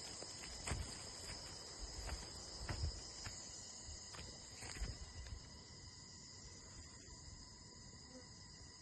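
Crickets chirring in a steady, high-pitched chorus. Scattered soft knocks and low thumps come through in the first half, then die away.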